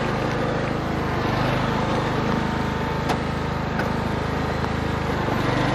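Troy-Bilt Bronco lawn tractor's 19 hp Kohler Courage engine running at a steady speed while the tractor tows a cart loaded with logs.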